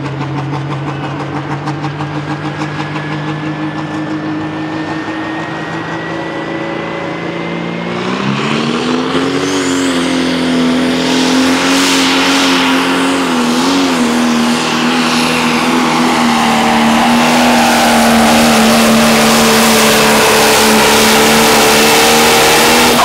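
Pro Stock pulling tractor's turbocharged diesel engine. It holds steady with a high whine slowly rising in pitch, then revs up hard about eight seconds in and stays at full throttle, loud and steady, as the tractor pulls the weight-transfer sled down the track.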